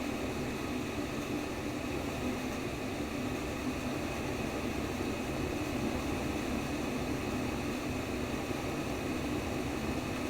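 Steady white noise for baby sleep: an even, unbroken hiss with most of its weight in the low-middle range, like a fan or air conditioner running.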